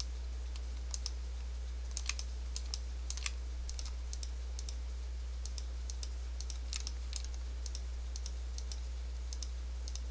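Irregular light clicking of a computer mouse and keyboard, one or two clicks a second, some in quick pairs, over a steady low electrical hum.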